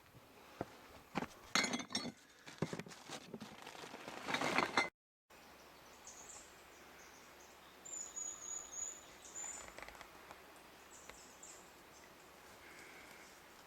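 Clinks and knocks of food containers and utensils being packed into a chilly bin. After a brief dropout, faint high chirps and a short whistled bird call over a quiet background.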